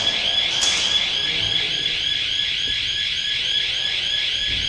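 An electronic alarm or buzzer sounding continuously: a steady high-pitched tone that pulses rapidly and evenly.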